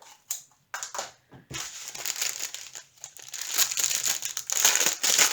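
Plastic packaging crinkling as it is handled: a few short clicks, then continuous rustling that grows louder toward the end.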